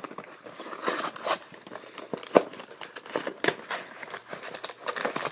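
Trading-card box packaging being pulled and torn open by hand: irregular crinkling, rustling and tearing.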